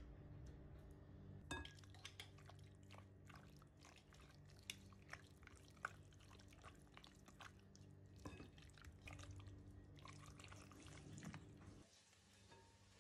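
Metal spoon stirring raw chicken pieces with spices and ginger-garlic paste in a glass bowl: faint wet mixing sounds with many quick clicks and taps of the spoon against the glass, over a low steady hum. The stirring stops about a second before the end.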